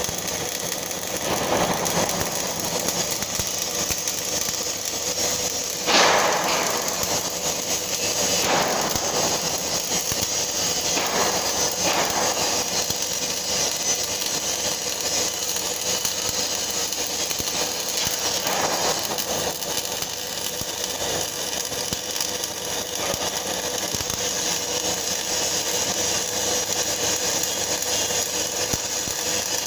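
Flux-cored arc welding: the arc crackling and sizzling steadily throughout, with a brief louder flare about six seconds in.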